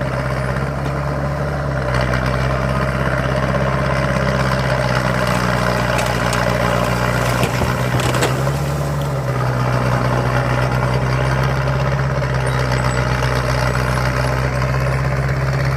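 Bulldozer's diesel engine running steadily under work, its pitch shifting slightly about two seconds in and again around nine seconds. A few short metallic knocks come in the middle.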